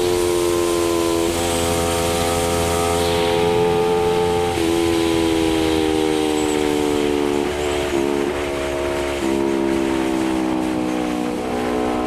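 Honda CBR250RR parallel-twin engine running through an R9 GP aftermarket exhaust while riding at fairly steady revs. It gives a steady drone whose pitch sinks slowly, dips briefly a few times as the throttle is eased, and picks up again near the end, with a hiss of wind and road underneath.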